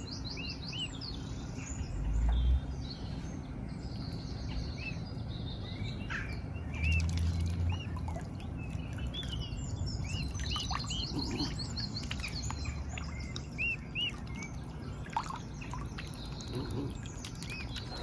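Small songbirds chirping and singing outdoors, with short repeated chirps and quick trills throughout. A low rumble rises about two seconds in and again around seven seconds.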